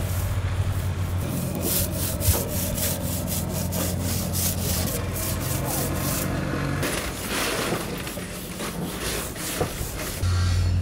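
A hand tool rubbing back and forth on a wooden boat hull in rapid, rhythmic strokes, working over filled spots in the planking. A low steady hum sits underneath at the start and returns near the end.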